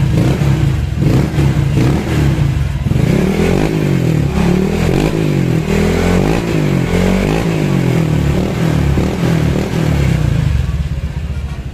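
Honda Click scooter engine breathing through a TRC aftermarket exhaust pipe, revved over and over: quick throttle blips for the first few seconds, then a series of longer revs rising and falling in pitch, easing back toward idle near the end. A full, crisp exhaust note.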